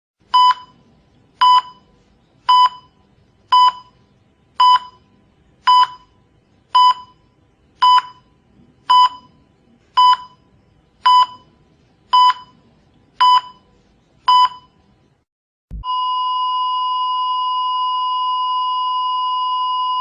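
Heart-rate monitor sound effect: fourteen short beeps about once a second, then a continuous flatline tone after about sixteen seconds, the sign of the heart stopping.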